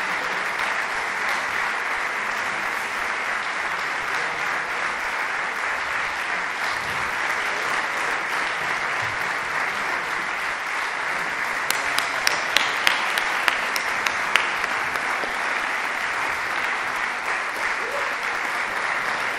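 Concert-hall audience applauding steadily. Starting about twelve seconds in, a run of about eight louder single claps stands out for a couple of seconds.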